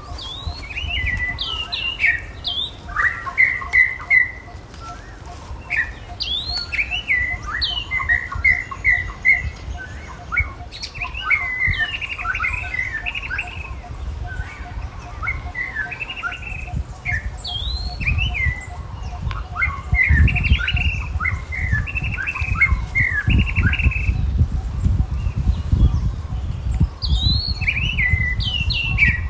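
Repeated high-pitched chirping and squeaking calls in clusters, many sliding down in pitch, over a low rumble that grows stronger about two-thirds of the way in.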